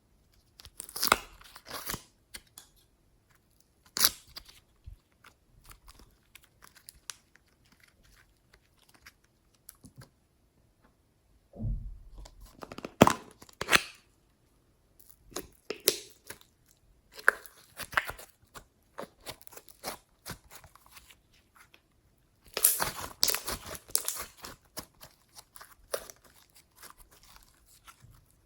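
Clear slime being squished and stretched by hand, giving irregular bursts of sticky crackling and sharp pops with short quiet pauses between them.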